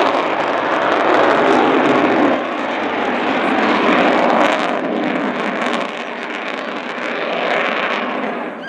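Avro Vulcan's four Rolls-Royce Olympus jet engines heard during a display pass: a loud, steady rush of jet noise that drops off about two seconds in and then slowly fades away.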